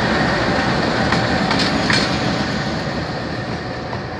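GE GEU-20 diesel-electric locomotive with its 7FDL-12 prime mover running as it passes close by, a steady rumble of engine and wheels. A few sharp wheel clicks on the rails come between one and two seconds in, and the sound fades a little as it moves away.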